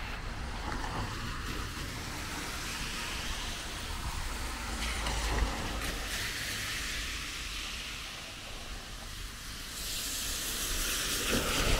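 Cars on a rain-wet road, their tyres hissing through standing water, with one passing louder near the end.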